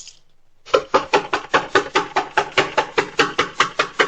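Rapid, continuous pounding on a front door, about seven hard knocks a second, starting a little under a second in. This is police banging on the door to get an answer.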